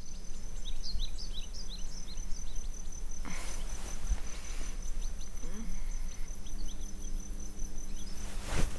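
Crickets chirring in one steady high tone, with a few short high chirps over a low hum. A brief soft rush of noise comes about three seconds in, and a louder burst of noise at the very end.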